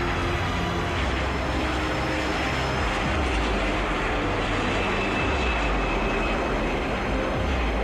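Jet airliner on its takeoff roll: the engines at takeoff power give a steady rumble and rushing noise, with a faint high whine partway through.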